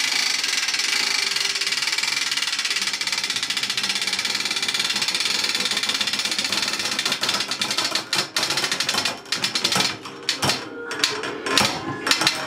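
A steady, fast mechanical rattle as a natural-fibre rope is pulled under rising load. From about seven seconds in it turns into irregular sharp cracks and snaps, loudest near the end, as the rope's strands tear at about 192 kg.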